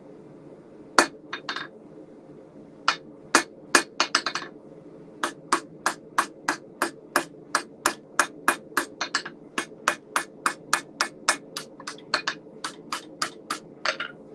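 Hand hammer striking hot steel on an anvil while a punch is forged: a few scattered blows at first, then a steady run of about two and a half blows a second. A steady low hum sits underneath throughout.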